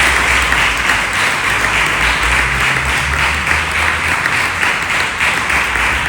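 A congregation applauding with sustained hand-clapping.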